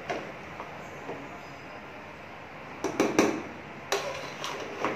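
A steel spoon scraping through cooked rice and knocking against the side of an aluminium cooking pot as the biryani is stirred, with a handful of sharp clinks about three to four seconds in.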